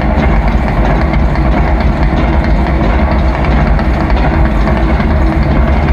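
Loud, steady, low rumbling drone from the amplified sound system of a live rock concert's drum segment. There is no clear beat, only a deep bass rumble with a few sustained tones above it.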